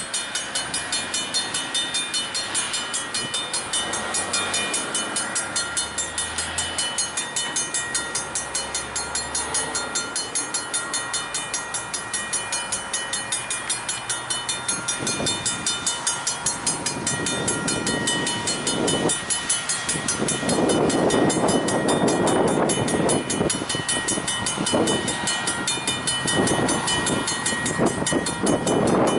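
A railroad bell rings rapidly and evenly throughout. From about halfway, a single diesel locomotive's engine and wheels rumble in, growing louder as it approaches and passes close.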